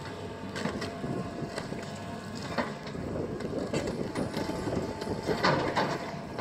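Terex tracked hydraulic excavator running with a steady engine hum as its bucket tears at a building's roof and walls, with several crashes and clatters of breaking material, the loudest about five and a half seconds in.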